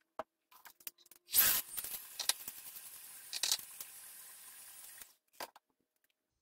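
Kitchen utensils and containers being handled at a countertop: a few light clicks, then about four seconds of rustling hiss that starts with a loud scrape and swells again midway.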